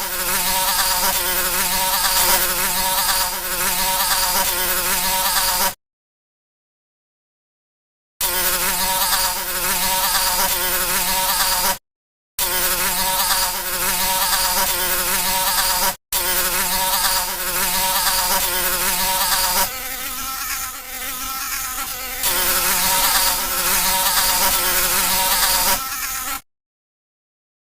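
A fly buzzing steadily, a low droning hum with many overtones, cut by several dead-silent gaps: one of about two seconds some six seconds in, a short one near twelve seconds, and another near the end. It turns fainter for a couple of seconds around twenty seconds in.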